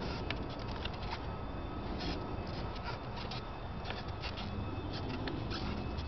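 Scattered small clicks and scrapes of hands unscrewing a coaxial F-connector and handling the cable in a plastic junction box, over a steady low background rumble.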